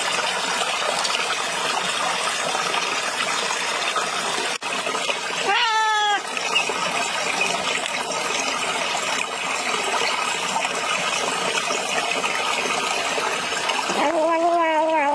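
A cat meowing twice, a short call about six seconds in and a longer one near the end, over a steady rushing hiss.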